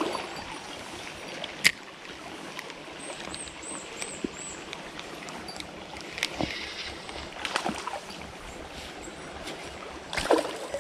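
Flowing river water, a steady rushing haze, broken by a few brief sharp ticks: one about two seconds in, a couple more in the middle, and one near the end.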